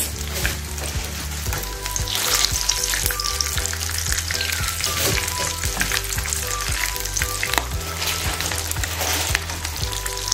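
Breaded chicken drumsticks shallow-frying in oil in a pan: a steady sizzle with many small crackles and pops as the pieces are turned over with forks.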